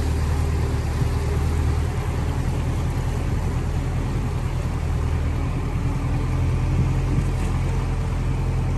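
A vehicle's engine running steadily as it drives through floodwater over a road, with the churned water rushing and splashing around it.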